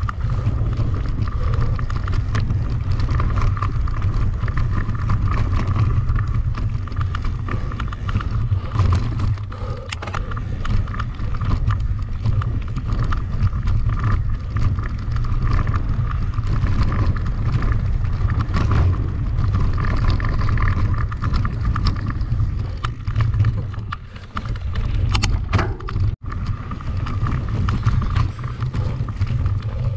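Mountain bike being ridden over rough ground: a steady low rumble with frequent rattling clicks, and a brief dropout about three-quarters of the way through.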